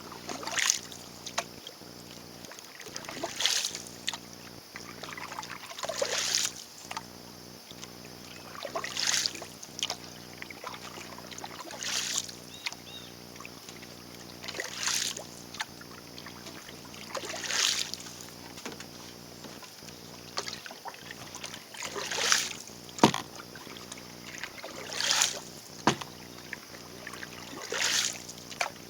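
Paddle strokes in calm water, about one every three seconds, each a splashy swish as a small sailing dinghy is paddled along with no wind.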